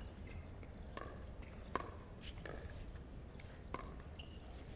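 Pickleball paddles hitting the ball back and forth in a rally, sharp pops about once a second.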